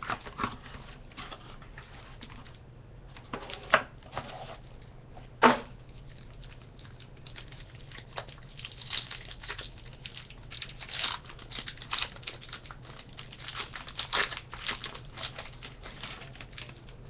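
A sealed trading card box being torn open and its wrapper and cards handled: crinkling and tearing of plastic and cardboard. Two sharp snaps come about three and a half and five and a half seconds in, then a run of quick rustles.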